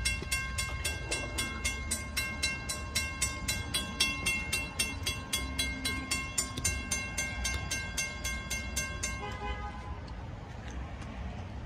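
Railroad grade-crossing warning bell ringing in rapid, even strokes while the crossing gates come down. It stops about nine seconds in, once the gates are lowered, leaving a low rumble.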